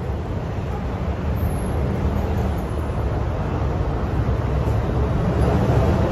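Steady low rumble of street traffic, growing slowly louder toward the end.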